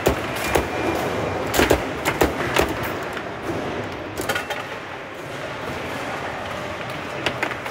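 Foosball table in play: the hard ball being struck by the plastic players and rods knocking, giving a run of sharp irregular clacks in the first three seconds, another about four seconds in, and a couple near the end, over steady room noise.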